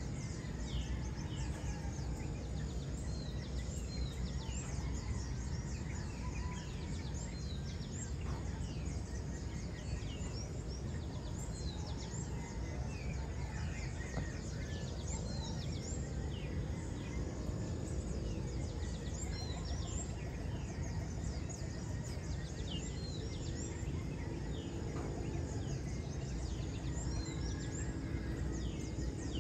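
Many birds chirping and calling, short high notes several times a second throughout, over a steady low background rumble.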